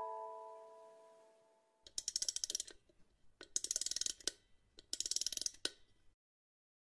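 The last notes of a music-box lullaby fade away. Then a wind-up key is turned in three bursts of rapid ratchet clicks, each about a second long, as the music box is wound.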